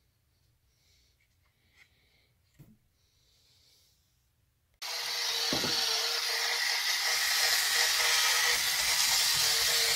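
Battery-operated bump-and-go toy old-timer car switched on about five seconds in: its motor and drive start with a sudden loud, steady hiss and a constant hum, with a low knock shortly after. Before that, only a few faint clicks.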